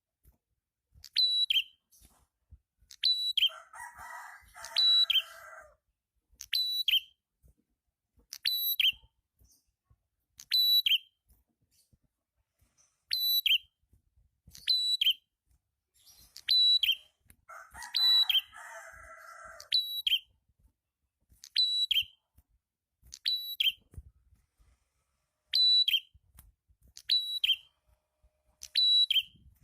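Prenjak kepala merah, a small prinia-type warbler, giving a short sharp two-note call about every two seconds. Twice, once early on and once past the middle, the calls are joined by a buzzy chatter of about two seconds.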